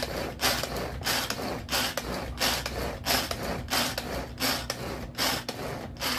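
Tupperware pull-cord chopper worked over and over, about three pulls every two seconds, each pull a short noisy burst of the blades churning through frozen strawberries as they are blended into ice cream.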